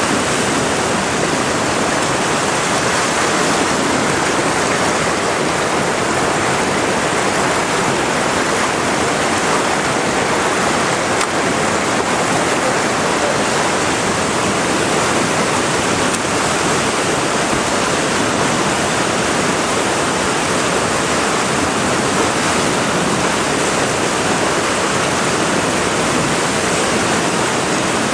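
Whitewater rushing with a steady, loud roar.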